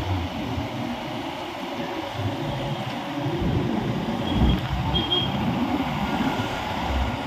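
Ride noise from a motorcycle in traffic on a wet road: wind buffeting the microphone over the steady rumble of engines and tyres. Two brief faint high tones sound about halfway through.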